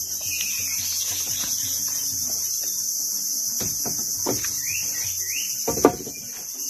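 Steady high-pitched insect chorus, with a few sharp knocks in the second half, the loudest shortly before the end.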